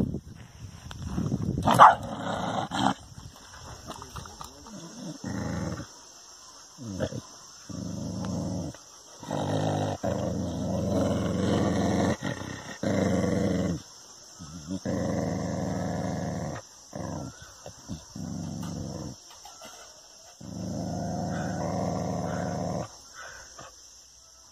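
Dog growling in long low stretches, broken by short pauses, at its own reflection in a mirror as if at a rival dog; a single sharp, louder sound cuts in about two seconds in.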